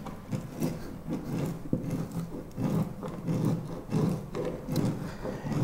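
Metal scraper scraping old traction-mat glue off a jet ski deck in short repeated strokes, about two a second. The glue has been softened by adhesive remover and comes up gummy.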